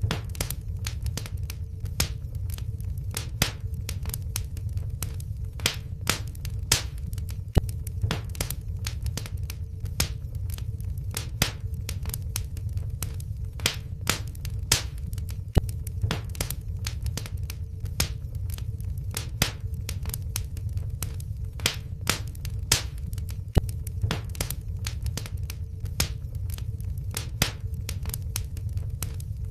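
Wood fire in a fireplace crackling, with sharp irregular pops several times a second over a steady low rumble.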